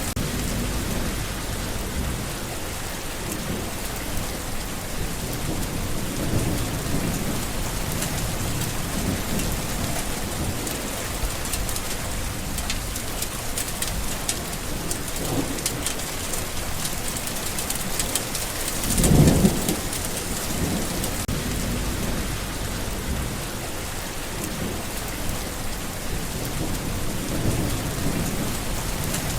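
Steady rain falling, with low rolls of thunder rumbling under it; the loudest roll comes about two-thirds of the way through.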